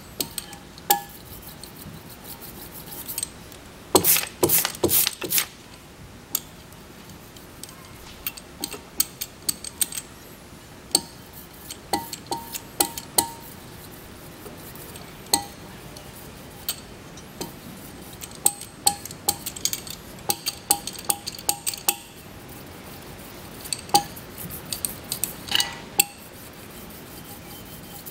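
Metal scraper scraping and clinking against the aluminium sealing flange of a Rotax 912 ULS propeller gearbox housing, scraping off old silicone sealant. It comes in irregular runs of short scrapes and taps, the loudest run about four seconds in.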